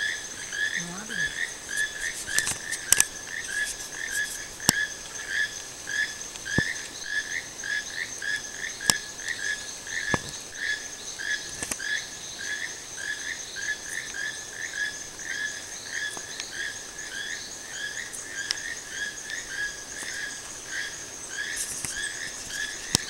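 Toucans calling: a steady run of short repeated notes, about two or three a second, over a constant high whine, with a few sharp clicks.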